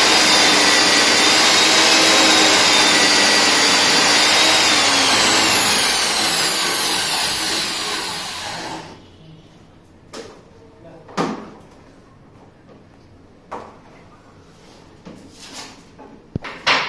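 Electric diamond core drill on a wall-mounted rig, running steadily as it bores into reinforced concrete. About five seconds in its whine starts to fall, and it stops about nine seconds in. After that come a few scattered knocks and clicks.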